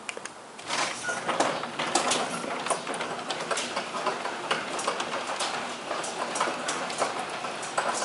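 Sectional garage door going up under a garage door opener, rattling continuously with a stream of small clicks and knocks as it rises. It starts about a second in.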